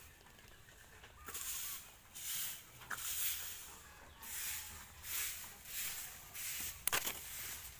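Plastic sheet crinkling and rustling in repeated bursts as it is lifted and handled over a heap of cut cassava leaves, with the leaves rustling under it and a sharper crackle near the end.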